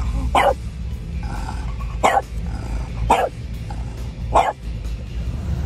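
French bulldog barking inside a car: four short barks, about a second apart, over a steady low rumble.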